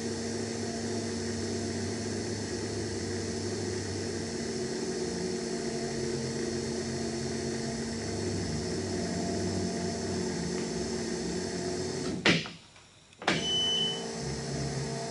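Electric fuel pump running with a steady hum and hiss, pressurizing new fuel lines to the carburetors while air is purged through them. The sound drops out for about a second near the end, with a click at each edge, then comes back.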